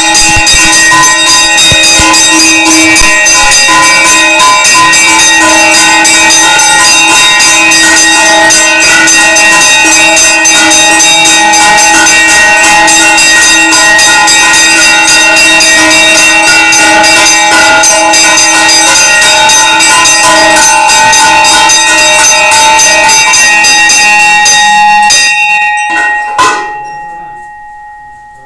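Temple bells rung rapidly and without pause, many ringing tones over one another. The ringing stops about 25 seconds in, and after one last strike a single tone rings away.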